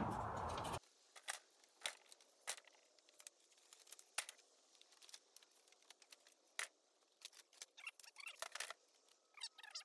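Faint, scattered clicks and knocks of old wooden tongue-and-groove boards being handled and shifted in a stacked pile, with a flurry of light scrapes and squeaks near the end. A background hiss cuts off abruptly under a second in.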